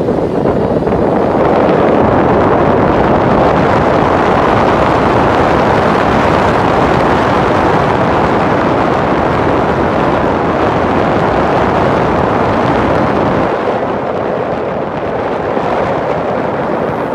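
Steady loud rushing noise of wind on the phone's microphone, mixed with light road traffic. It eases a little about three-quarters of the way through.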